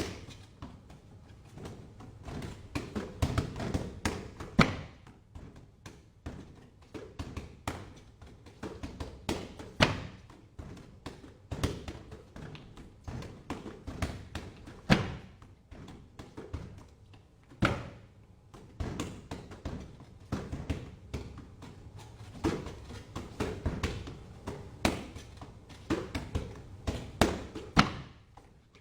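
Wing Chun fist strikes landing on a target, in irregular flurries of quick thuds and taps with a few harder single hits.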